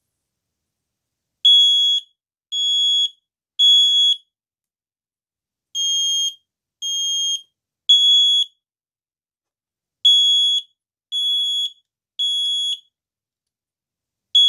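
First Alert SA700 smoke alarm's buzzer sounding its alarm, set off by test smoke aerosol. It gives loud, high beeps in groups of three, each beep about half a second, with pauses of about a second and a half between groups. Three groups sound, and a fourth starts at the very end.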